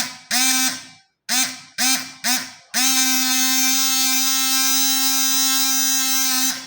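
Small 12 V 8 W brushless water pump switched on and off in four short bursts, its buzzing whine rising as it spins up and dropping as it stops each time. It then runs steadily for about four seconds and cuts off near the end.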